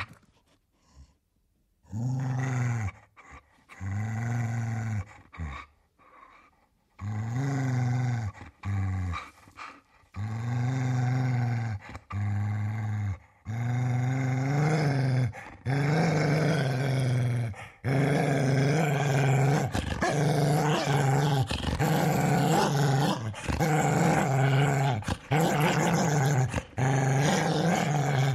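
Large dog growling angrily: a run of deep growls, each rising and falling in pitch. At first they come about a second long with short pauses between them, and from about halfway through they run almost without a break.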